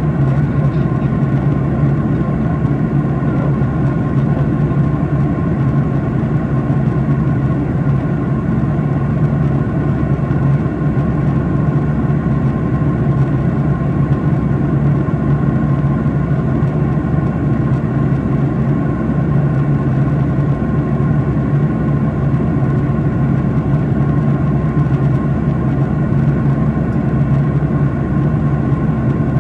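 Steady cabin drone of a Boeing 737-800 in flight, heard inside the cabin over the wing: its CFM56-7B turbofan engines and the airflow past the fuselage. It is a constant low rumble with a few faint steady tones above it.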